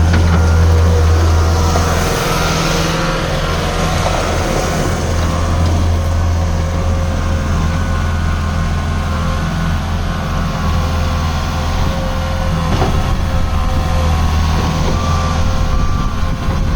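Bobcat S650 skid steer loader's diesel engine running steadily, with a thin steady whine over the low hum and a brief hiss about two seconds in.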